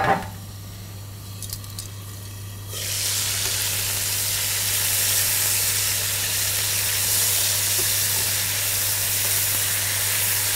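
Chicken breast frying in hot oil in a non-stick frying pan. A loud, steady sizzle starts suddenly about three seconds in, after a few faint clicks.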